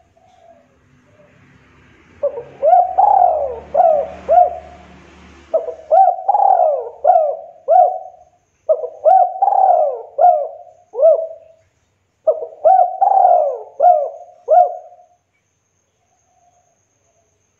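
Spotted dove cooing: four phrases, each of several quick coos that rise and fall in pitch, set apart by short pauses.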